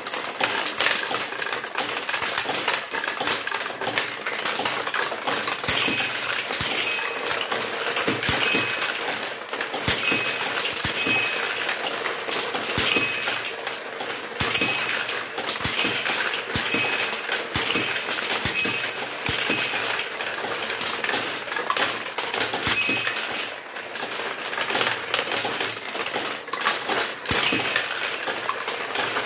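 Vintage pachinko machine's rear mechanism running: steel pachinko balls clattering and clinking through the ball-handling works in a steady metallic rattle. Short high tones repeat about once a second through the middle stretch.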